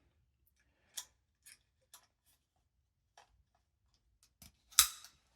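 Scattered light clicks and taps as the small plastic doorbell chime unit of the smart lock is handled, about six in all, the loudest sharp click near the end.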